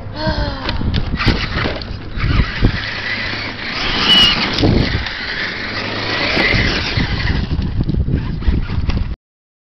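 Traxxas E-Maxx electric RC monster truck driving over loose gravel: its twin electric motors whine, rising and falling in pitch with the throttle, while the tyres crunch and scatter stones. The sound cuts off abruptly near the end.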